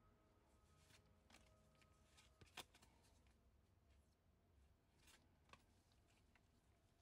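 Faint soft flicks and slides of trading cards being flipped one at a time through a stack in gloved hands, the sharpest flick about two and a half seconds in.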